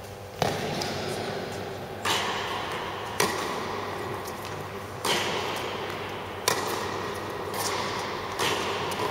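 Tennis rally on an indoor court: about six sharp racket strikes and ball bounces, one every one to two seconds, each echoing briefly in the large hall.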